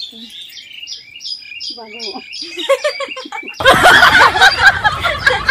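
A bird calls a quick run of repeated high chirps, about three a second. About three and a half seconds in, a sudden loud burst of noise starts, with a voice over it.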